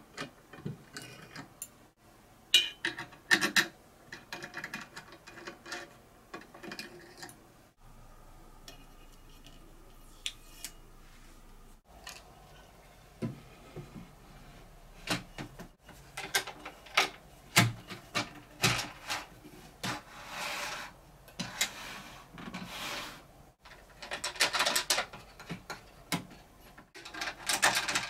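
Handling noises of an aluminium-extrusion fence and its wooden parts on a wooden drill press table: rubbing and sliding, with scattered clicks and knocks of the metal fittings. It comes in short, separate stretches that start and stop suddenly.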